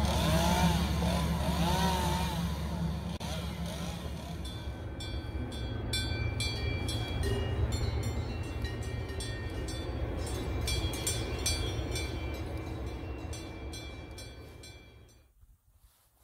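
Combine harvester engine running as it moves along a track. Then irregular metallic clinks and ringing, like cowbells, over a low hum that fades out near the end.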